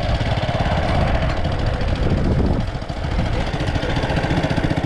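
Small motorcycle engine running under way, with rapid, even firing pulses and a brief dip in engine sound about two and a half seconds in.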